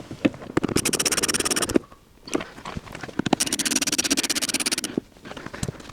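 Ratchet wrench clicking rapidly in two runs as screws are driven in, with a few single knocks of the tool against the door between them.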